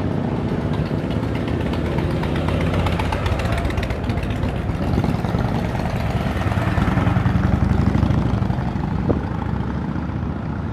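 Motorcycle engines running at idle, a steady rumble that swells a little louder about six to eight seconds in.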